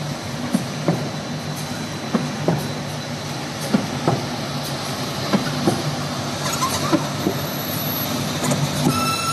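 Corrugated-board printing, slotting and die-cutting machine running: a steady hum with sharp clacks about twice a second. A short electronic beep sounds near the end.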